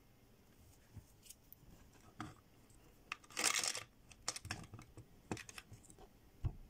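Small plastic toy gumball machine filled with M&M's being worked by hand: scattered plastic clicks and taps, then a little over 3 s in a short rattling clatter as the crank turns and candies shift, dropping one into the chute. A few more clicks and taps follow as the candy is taken out.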